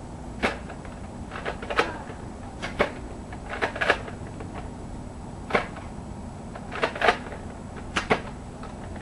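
Nerf foam-dart blasters being primed and fired, with darts striking: sharp plastic clacks and pops at irregular intervals, some in quick pairs.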